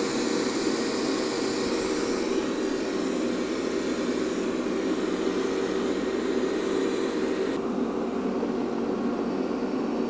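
Xiaomi robot vacuum cleaner running on a carpet: a steady whir of its suction fan over a low hum. The hiss turns duller about three-quarters of the way through.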